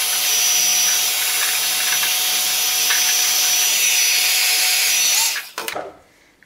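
Black & Decker heat gun running, its fan blowing a steady rush of air with a thin high whine; it is switched off a little after five seconds in and the noise dies away quickly, leaving a few faint handling clicks.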